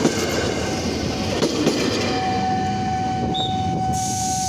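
Tokyo Metro 6000 series electric commuter train passing close by, its wheels rumbling and knocking over the rail joints. A steady high tone joins about halfway through.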